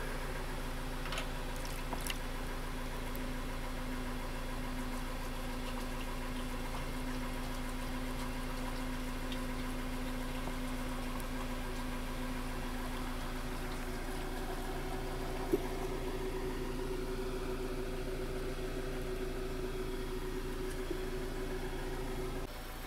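Steady hum of an engine idling; its tone shifts higher about two-thirds of the way through.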